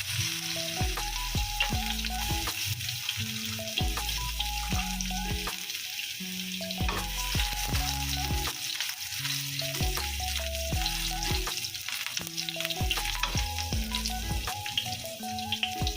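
Chopped garlic sizzling steadily in hot oil in a wok over lowered heat, frying toward golden brown, with background music underneath.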